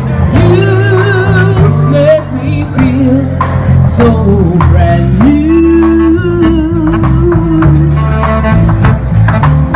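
Live swing-jazz band playing: a held, wavering melody line over a stepping bass line, with drum-kit cymbal strokes throughout.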